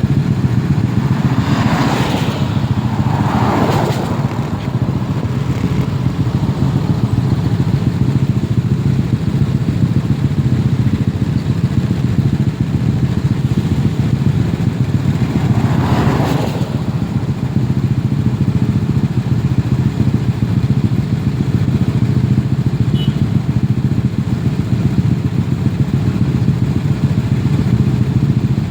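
Motorcycle engine running steadily, with three brief whooshes about two, three and a half, and sixteen seconds in.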